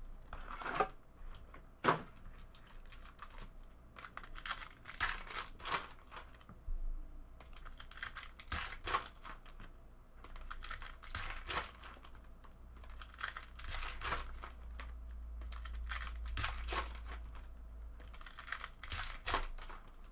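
Trading card packs (2016 Panini Contenders Draft Picks) being torn open by hand, their wrappers crinkling in a string of short rustling bursts, with a sharp snap about two seconds in.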